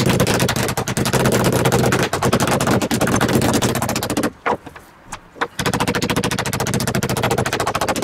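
Metal meat mallet pounding a butterflied pork fillet flat on a wooden cutting board: rapid, steady strikes, with a pause of about a second just past the middle.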